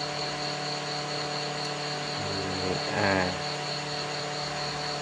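A steady mechanical hum with a faint pulsing high whine over it, and a short murmur of a voice about three seconds in.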